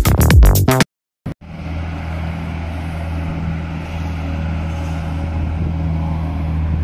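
Electronic dance music cuts off about a second in. After a brief silence, live outdoor sound takes over: a steady low engine hum over background noise.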